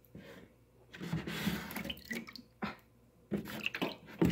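A slotted plastic spoon sloshing and splashing through shallow water in a tub, with water dripping off it, as minnows are scooped up. The splashing starts about a second in and comes in several goes, with a short sharp splash near the middle.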